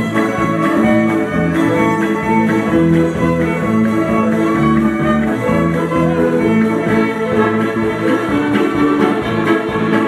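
Two fiddles playing a Ukrainian old-time fiddle tune together, with acoustic guitar accompaniment keeping a steady rhythm.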